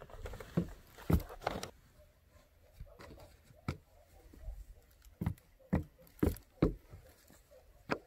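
Handling sounds on a wooden deck: a rustle of cloth and a few thuds in the first two seconds, then about half a dozen separate sharp knocks and taps on the boards as mats and a woven coaster are set down.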